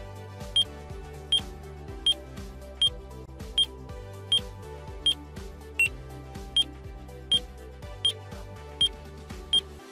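Short high beeps from the airOS antenna alignment tool, about every three-quarters of a second at a steady pitch, sounding the received signal strength while the PowerBeam M5 dish is being aligned. Background music plays underneath and stops near the end.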